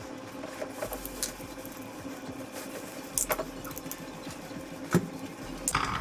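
Scattered clicks and knocks of a removed twin-tub washing machine gearbox being handled and turned over, over a steady low hum. The sharpest knock comes about five seconds in.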